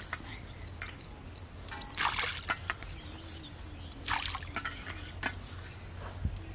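Short splashes in shallow muddy pond water, about two seconds in and again about four seconds in, as bait is tossed in by hand to draw the fish.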